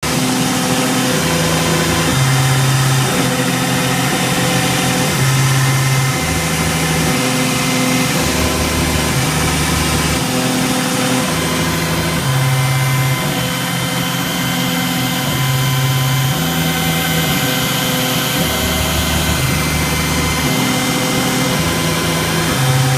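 Makita router spinning at about 10,000 rpm on a hobby CNC machine, a steady whine, under low tones that change pitch in steps every second or so as the machine's axis motors move.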